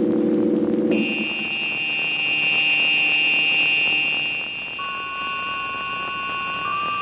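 Dramatic suspense score. A low throbbing chord gives way about a second in to high, steady held notes, and a lower held note joins about five seconds in.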